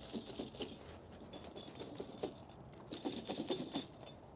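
Steel snow chain on a truck tire rattling and clinking as it is handled, in two bursts: one right at the start and one about three seconds in.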